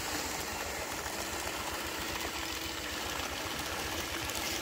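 Radio-controlled model bulldozer running steadily as it crawls along on its tracks, a constant mechanical drone with no break.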